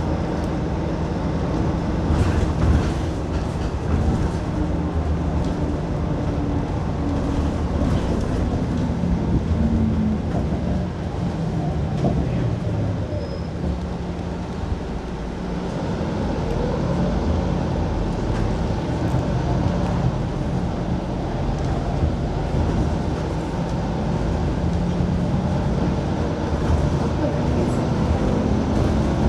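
City bus running, heard from inside the cabin: a steady engine and road drone whose pitch rises and falls as the bus speeds up and slows, with occasional brief rattles.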